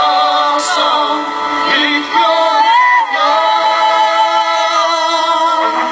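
Live worship band performing a worship song: voices singing long, held notes over the band's accompaniment.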